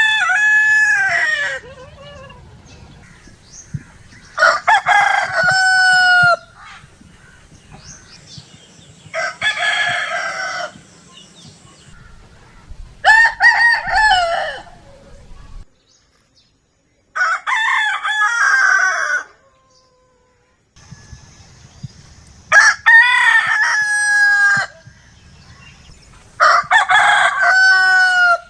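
Rooster crowing over and over: about seven full cock-a-doodle-doo crows, each lasting under two seconds and ending on a drawn-out falling note, roughly every four seconds.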